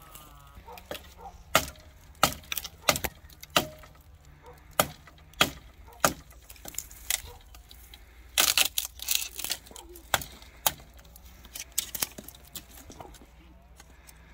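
A run of irregular sharp knocks and clinks, like utensils and dishes being handled, with a quick dense clatter about eight seconds in.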